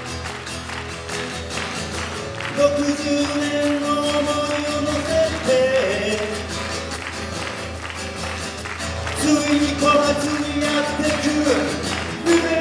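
A man singing to his own strummed acoustic guitar. He sings two long phrases, each ending on a held note that slides down, over steady strumming.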